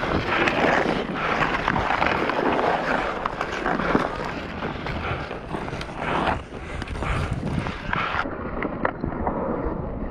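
Ice hockey skate blades scraping and carving on snowy pond ice during play, with frequent sharp clacks of hockey sticks on the puck and on each other.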